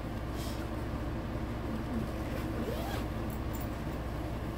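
Steady low hum of a window air conditioner running, with faint rustling as fabric bags are handled.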